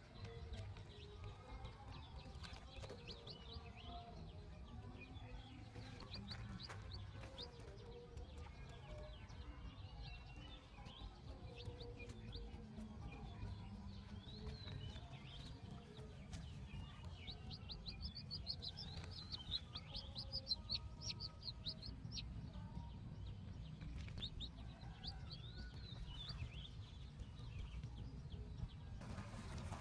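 A young chick peeping over and over in short, falling, high-pitched cheeps, thickest about two-thirds of the way through, over a low steady rumble.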